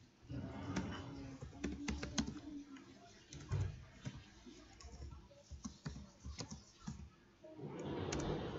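Typing on a computer keyboard: irregular, unhurried keystroke clicks as a short line of text is entered, with a brief soft rush of noise near the end.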